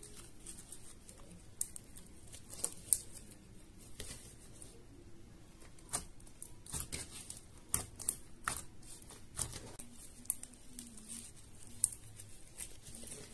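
White glue slime being stretched, pressed and pinched by hand, giving irregular small clicks and pops.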